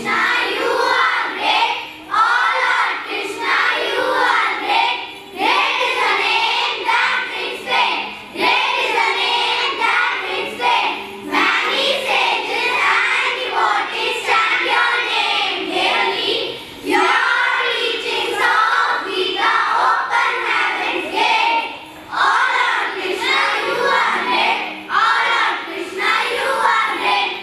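A chorus of children's voices in unison, amplified through stage microphones, delivered in short phrases with brief pauses between them.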